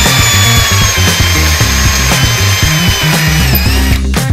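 Cordless drill running steadily as its bit cuts into a broken-off bolt in a metal bracket, drilling it out. The motor's whine sags slightly under load and cuts off about four seconds in as the bit is pulled from the hole.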